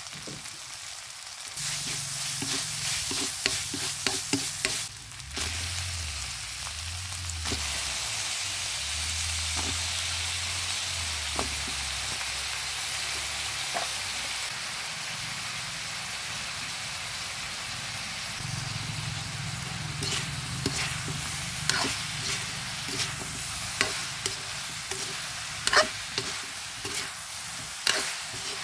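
Minced pork and eggplant sizzling as they are stir-fried in a metal wok. A spatula scrapes and clicks against the pan, the clicks coming more often near the end.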